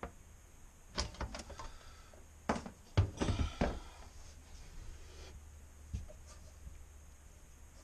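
Plastic clicks and knocks as a bidet toilet seat is taken off the bowl: one click about a second in, a quick run of knocks around three seconds in, then one more tap about six seconds in.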